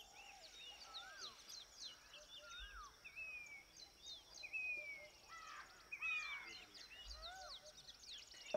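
Several birds calling in open farmland: repeated whistled notes that rise and fall, short descending slides and quick chirps, over a faint steady high-pitched tone. A single sharp click near the end.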